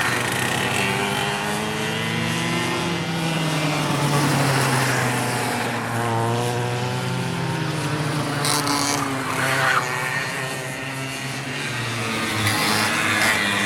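Several go-kart engines running at a track, their pitch rising and falling as the karts accelerate, lift off and pass, with more than one engine heard at a time.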